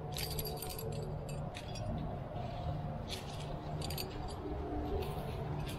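Metal climbing gear on a trad climber's harness rack (carabiners and protection) clinking and jingling in several short bursts as the climber moves.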